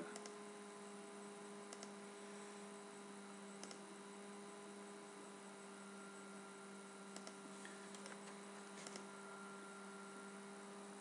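Faint, steady electrical hum from the recording setup, with a handful of light computer mouse clicks as spreadsheet cells are selected.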